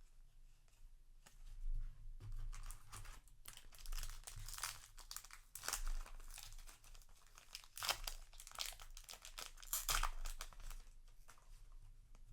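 Foil booster-pack wrapper crinkling and tearing, in a run of rustling bursts with louder surges every second or two.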